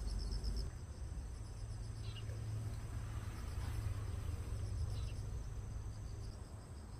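Insects chirping in a steady chorus of rapid high pulses, with a low rumble underneath.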